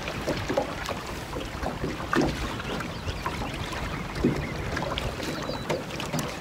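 Small waves lapping and slapping irregularly against the hull of a bass boat, with wind rumbling on the microphone.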